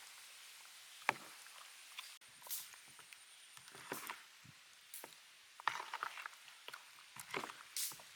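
Scattered clicks and knocks with a few short rustling bursts: hands and utensils at work during food preparation.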